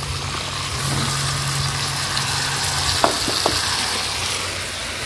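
Food sizzling in hot oil in a pan, a steady frying hiss, with two light knocks about three seconds in.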